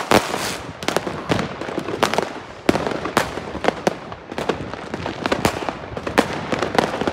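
Many fireworks and firecrackers going off at once: a dense, irregular run of sharp bangs and cracks with no pause, the loudest two near the start and about two and a half seconds in.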